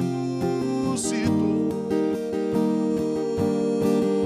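Acoustic guitar strummed steadily, accompanying a man singing a slow worship song in Portuguese, who draws out one long held note.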